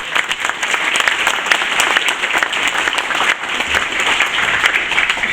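Audience applauding: many hands clapping at once in a steady, sustained round.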